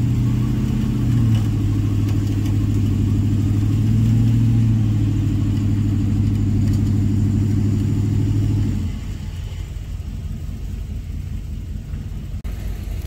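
Truck engine running under load, its revs swelling up and down twice, then dropping to a quieter idle about nine seconds in.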